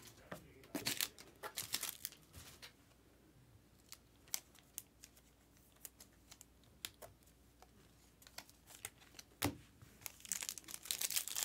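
Trading cards being thumbed through and slid against each other by hand: scattered light clicks and flicks of card stock. Near the end a foil card-pack wrapper crinkles as it is picked up.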